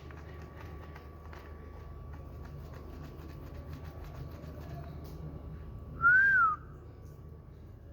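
A single short, clear whistle about six seconds in, rising and then falling in pitch, over a faint steady hum and a few faint clicks.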